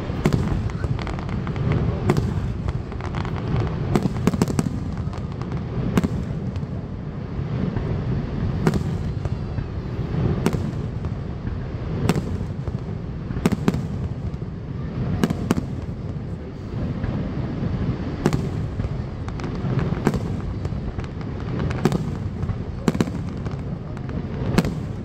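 Aerial fireworks shells bursting in sharp bangs, one every second or two and sometimes two or three close together, over a steady low rumble.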